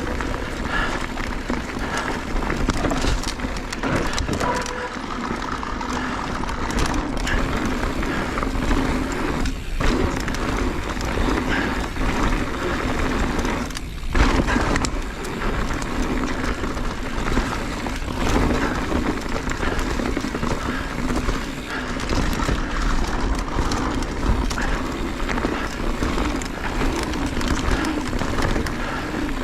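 Mountain bike descending a rocky downhill trail: knobby tyres rolling over rock and dirt, with frequent knocks and rattles from the bike, and wind rumble on the microphone.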